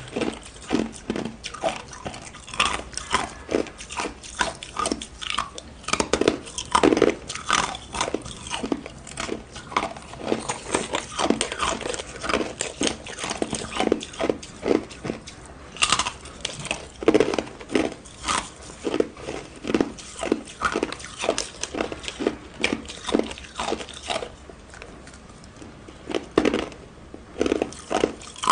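Ice being bitten and chewed close up: a long run of sharp, crunching cracks, a few each second.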